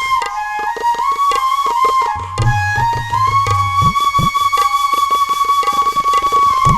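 Background music: a flute melody in long held notes over tabla drumming, with the low drum's strokes sliding up in pitch now and then.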